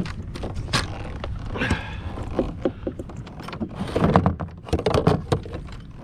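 A run of clicks, rattles and hollow knocks from gear and hands handling things on a kayak while a small speckled trout is being released, busiest about four to five seconds in.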